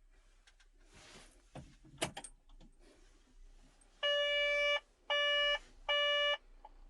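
A few clicks and a sharp knock, then three loud electronic beeps, each about half a second long, from the Doosan 55W wheeled excavator's cab panel as the ignition key is switched on, before the engine is started.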